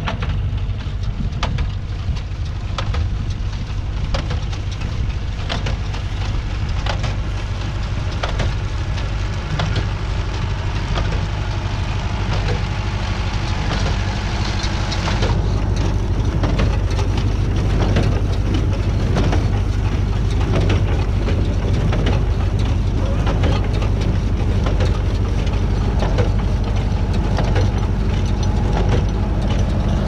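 Renault 651-2 tractor's diesel engine running steadily under load, pulling a New Holland 68 small square baler. The baler's pickup and plunger make a rapid run of knocks as hay is fed in and compressed, louder and closer from about halfway through.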